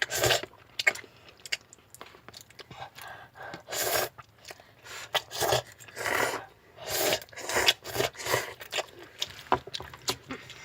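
Ramen noodles being eaten: a series of short, irregular slurping and chewing sounds, with some scraping.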